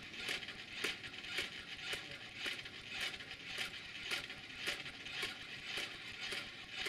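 A person's palm claps against a robot's padded hand in a steady hand-clapping game, about two claps a second at an even pace, over a faint steady hum.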